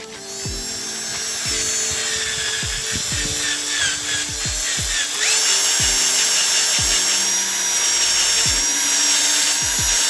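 Power drill spinning a wire cup brush against the plastic top of a car battery: a steady high-pitched whir with scraping, louder from about five seconds in. Background music with a regular low beat runs underneath.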